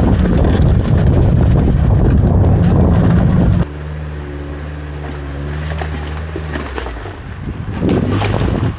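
An off-road 4x4's engine running under heavy wind noise on the microphone. About three and a half seconds in, the sound cuts abruptly to a steadier, quieter engine hum at low revs, which fades after a few seconds, leaving a few light knocks.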